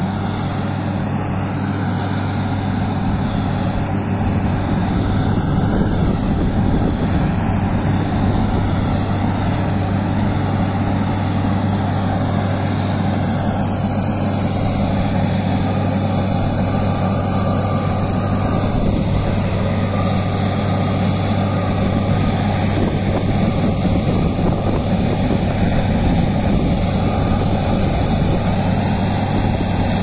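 Borewell drilling rig's diesel engines running steadily, a loud continuous low drone.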